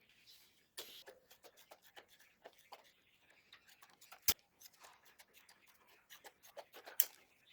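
Irregular small clicks and taps from hand work on small parts, with two sharper clicks about four and seven seconds in.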